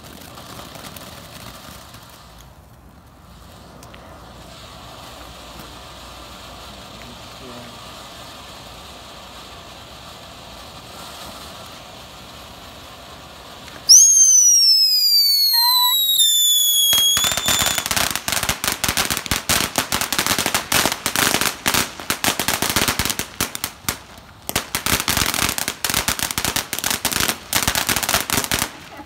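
Ground fountain fireworks hissing steadily as they spray sparks. About halfway through, a loud whistle starts suddenly and falls in pitch for a few seconds, then dense crackling takes over for the rest, with a brief lull partway through.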